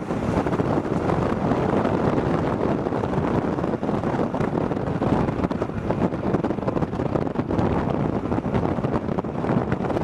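Steady rush of wind buffeting the microphone of a camera on a moving vehicle, with vehicle engine and road noise underneath.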